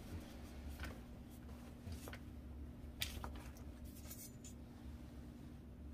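Faint rubbing and scuffing of a cloth wiping a rifle's receiver, with a few light knocks as the rifle is handled and turned.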